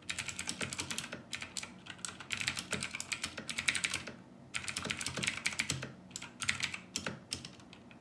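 Gentle, fast typing on an OMOTON MK201 tenkeyless mechanical keyboard with Outemu Blue clicky switches: a quick, even run of key clicks with a short pause about halfway through. The clicks are loud but not clacky, because the keys bottom out on a metal plate rather than on plastic.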